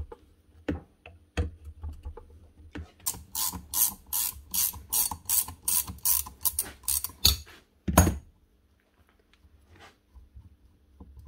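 Ratchet spanner clicking as it works a bolt loose on the front end of a Bosch GSH 27 breaker: a few scattered clicks, then a steady run of about four clicks a second for some four seconds. A single louder knock follows about eight seconds in.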